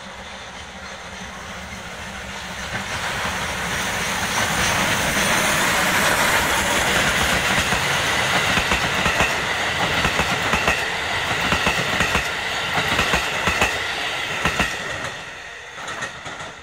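JNR class D51 steam locomotive D51 200 passing close by with its train, growing louder for the first few seconds as it nears. The coaches' wheels clack over the rail joints as they go past, and the sound drops away near the end.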